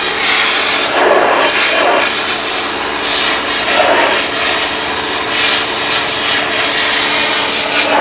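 Commercial 240-bar, 4.5 HP single-phase pressure washer running, its high-pressure water jet blasting into a cement brick and eroding holes in it. Loud steady spray noise with a steady pump hum underneath.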